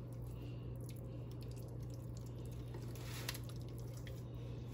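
Faint wet squishing and small sticky clicks of a hand smoothing a butter mixture under raw turkey skin, over a steady low hum.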